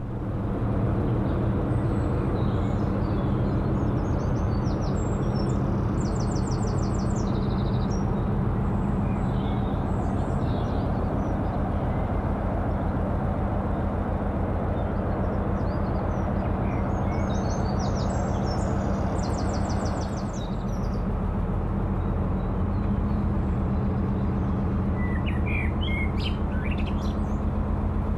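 Narrowboat's diesel engine running steadily at cruising speed, a low even chug with a brief dip about two-thirds of the way through. Birds chirp over it a few times.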